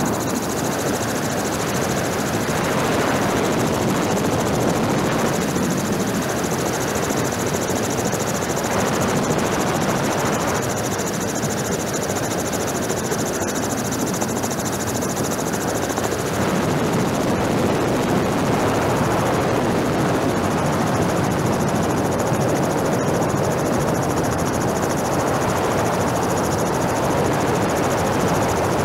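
Helicopter rotor and engine noise heard from aboard the camera helicopter: a steady, unbroken rush that does not change.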